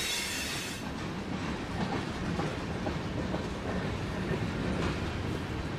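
Freight cars rolling past: a steady rumble of steel wheels on rail, with scattered clicks as the wheels cross rail joints. A brief hiss sounds in the first second.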